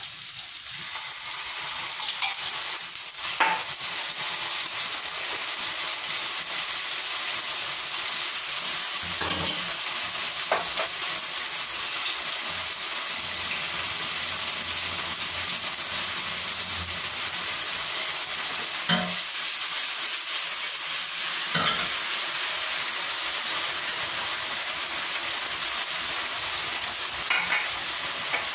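Onions, garlic and tomatoes frying in a stainless-steel pan on a gas burner, a steady sizzle, with a few sharp knocks from stirring against the pan.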